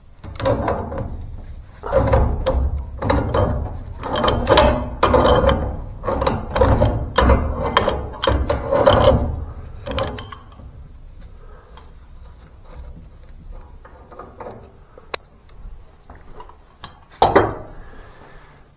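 Pipe wrenches turning a threaded gas-pipe tee loose: about ten seconds of repeated metallic creaking and grinding strokes, then quieter handling, and one loud knock near the end.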